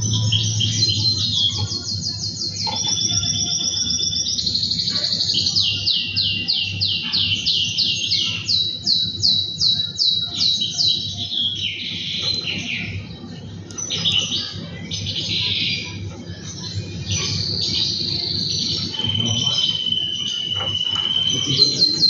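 Male canary singing a long rolling song: runs of rapidly repeated notes, several a second, changing from one trill to the next, with a held steady whistle near the end. A low steady hum runs underneath.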